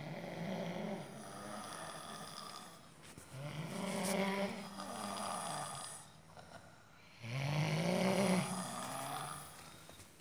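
A person snoring: three long, drawn-out snores about three seconds apart, each with a wavering pitched tone.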